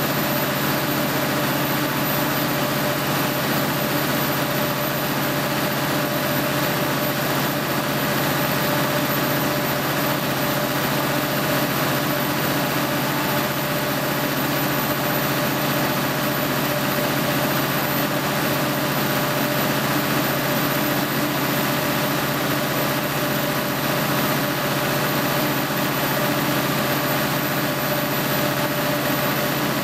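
2008 Cummins 250 kW standby diesel generator set running steadily under full rated load on a load bank, its engine held at a constant governed speed.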